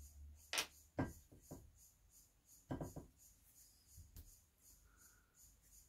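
A few soft, separate taps and knocks at irregular moments: painting tools handled at the table while paint is picked up on the brush.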